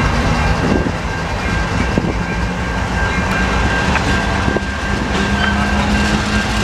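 GE diesel freight locomotives passing, their engines running with a steady low rumble and a steady high whine, along with the wheels rolling on the rails with a few light clicks.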